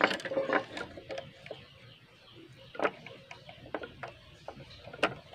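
Saw chain being fitted by hand onto a Stihl guide bar, its metal links clicking and rattling against the bar in scattered clicks with short pauses between.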